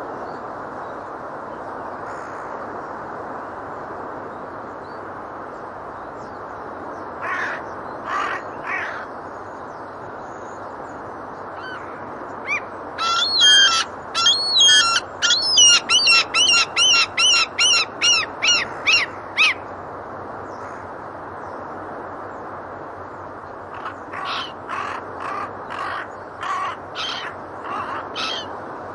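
Seagulls and geese calling over a steady rushing background. A few calls come about seven seconds in, then a long run of loud, rapid repeated calls from about twelve to nineteen seconds, then a scatter of shorter calls near the end.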